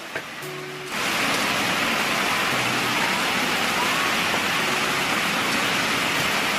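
A loud, steady hiss that starts suddenly about a second in, with faint music notes beneath it.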